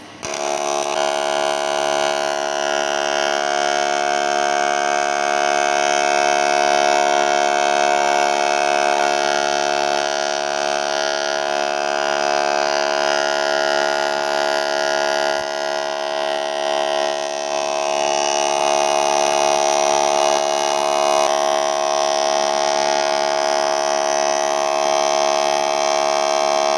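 TIG (argon) welding arc on a cylinder head, a loud steady electric buzz that starts abruptly as the arc is struck and holds almost unchanged.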